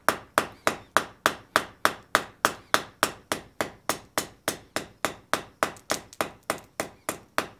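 Hand hammer striking the red-hot end of a 3/8-inch (10 mm) round bar on an anvil in a steady rhythm of about three blows a second, forging a short, blunt taper on the bar's end.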